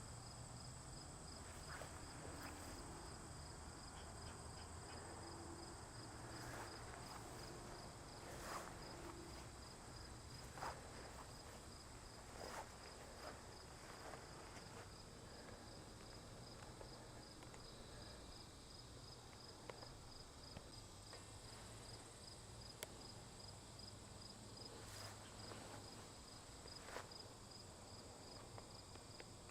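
Faint crickets chirping in a steady, even pulse, with a few light clicks and taps here and there.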